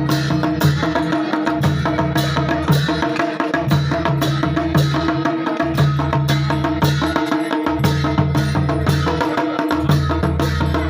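Dhol and damau, the Kumaoni folk drum pair, played in a steady, driving beat with strikes at even spacing. A sustained droning tone runs beneath the drumming.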